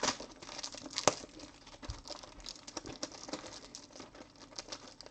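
Trading cards and their wrapping being handled close by: crinkling and rustling with light clicks, and one sharper click about a second in.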